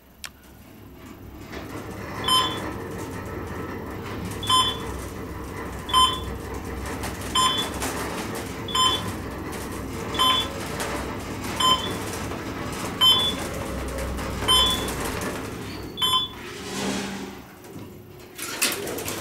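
Elevator car starting off with a click, then a steady hum and rumble as it travels up. A short electronic beep sounds as it passes each floor, about one every second and a half, ten in all. Near the end it settles and a burst of broader noise sets in, as of the doors starting to move.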